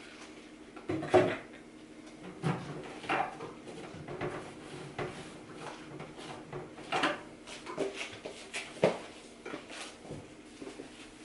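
Household cleaning handling noises: scattered knocks and clacks with short rubbing and scraping as a microwave is wiped down with a cloth. The sharpest knocks come about a second in and again near the end, over a faint steady hum.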